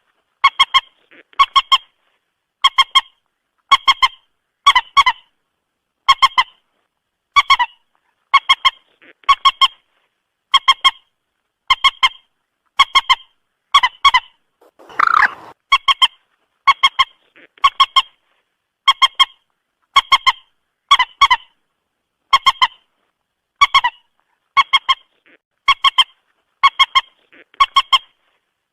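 Moorhen calling over and over, a short stuttering call of several quick pulses roughly every three-quarters of a second. One louder, longer, harsher call comes about halfway through.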